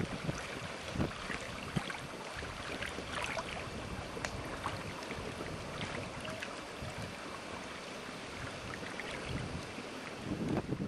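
Wind buffeting the microphone over water lapping and splashing, with small splashes scattered throughout. Heavier, low gusts of wind noise come in near the end.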